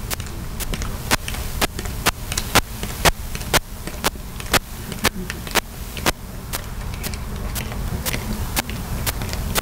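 Sharp, evenly spaced clicks or taps, about two a second, over a steady low rumble.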